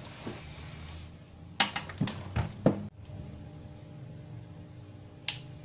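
A metal power-amplifier chassis being turned round and set down on a workbench: four or five sharp knocks and clatter between about one and a half and three seconds in, then a single sharp click near the end as a front-panel control is pressed.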